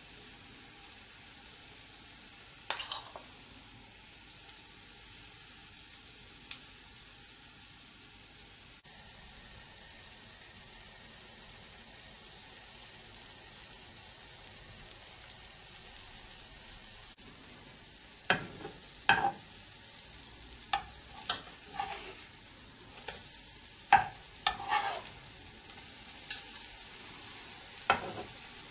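Pancake batter frying in hot oil in a frying pan, a steady sizzle. From about two-thirds of the way through, a spatula repeatedly clicks and scrapes against the pan as the pancakes are turned.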